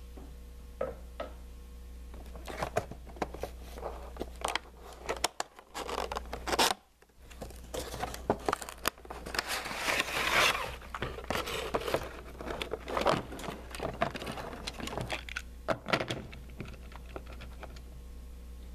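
Toy packaging of cardboard and plastic being pulled open by hand: crinkling, scraping and tearing with scattered clicks, densest and loudest about ten seconds in.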